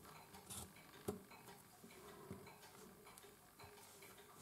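Near silence with faint handling noises: a few light, irregular clicks and taps from the stainless steel watch case and caseback being fitted by hand, the sharpest click about a second in.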